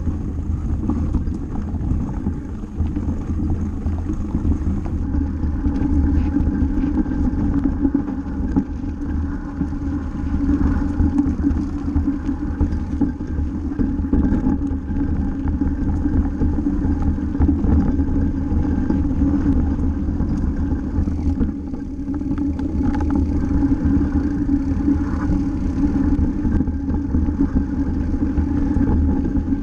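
Wind rushing over a bike-mounted camera's microphone and mountain bike tyres rolling over grass and a rough, stony dirt track, a steady low rumble with a few short rattles from bumps around two thirds of the way through.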